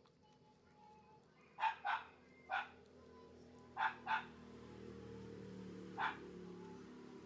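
A dog barking: six short, sharp barks, the first four in two quick pairs and the last one alone.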